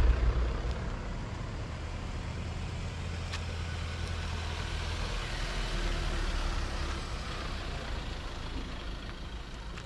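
4x4 vehicles driving slowly past on the road, a steady low engine rumble with tyre noise that eases off a little in the second half.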